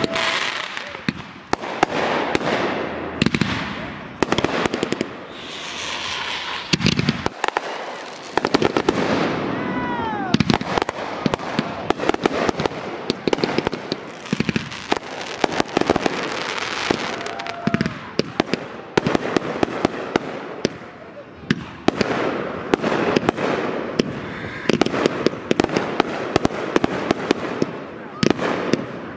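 Class C consumer fireworks going off in rapid succession: bangs of aerial bursts and dense crackling. A few short falling whistles are heard around ten seconds in.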